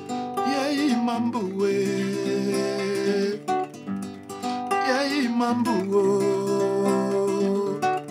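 Acoustic guitar playing a song accompaniment, with a singing voice coming in for two short phrases, about half a second in and again about four and a half seconds in.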